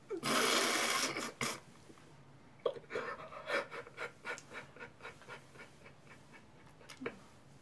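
Someone crying: a long, loud breathy sob, then a run of short gasping sobs, about three a second, that die away.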